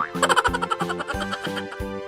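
Background music with a steady beat, about four beats a second, in a light, playful style.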